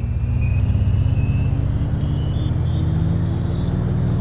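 A motor vehicle's engine running and slowly rising in pitch, as when accelerating, with a faint whine rising along with it.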